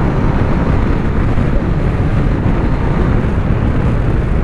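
Steady wind rushing over the microphone on a moving MV Agusta Turismo Veloce 800 motorcycle, mixed with its three-cylinder engine and road noise.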